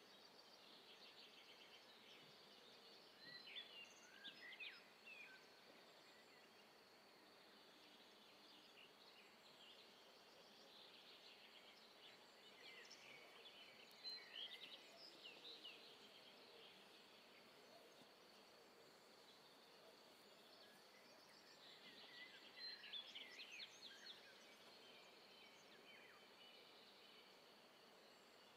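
Faint outdoor ambience: a quiet steady hiss, with small birds chirping in three short bouts, a few seconds in, around the middle and again a little after 20 seconds.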